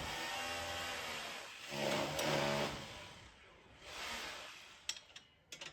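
Motorcycle engine revved in two short blips, each rising and then dying away, followed by a few sharp metallic clicks near the end.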